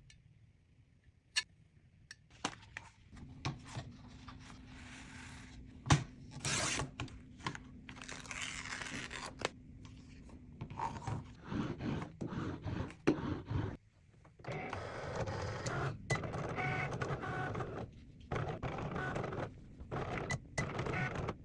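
A run of sticker-making handling sounds: sharp clicks and taps, a small machine motor humming steadily for several seconds, and repeated bursts of scraping and crinkling as sticker paper is worked.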